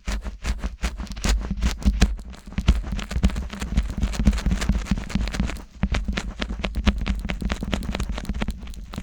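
Fingers rubbing and scratching on the silicone ears of a 3Dio binaural microphone. It is a dense run of quick crackly scrapes over a low rumble from the handling, with a brief lull a little before six seconds in.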